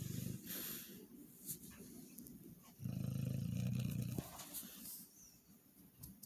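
Sleeping dog snoring: a low, buzzy snore with each breath. One snore fades out just as the sound begins, and a louder one lasting over a second comes about three seconds in, with quiet breathing between.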